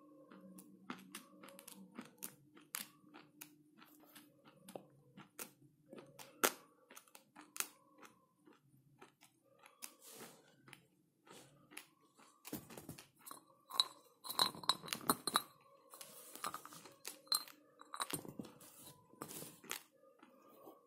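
Close-up crunching and chewing of hard, dry clay chunks bitten from a piece held at the mouth: a steady run of sharp crunches that grows louder and thicker past the middle.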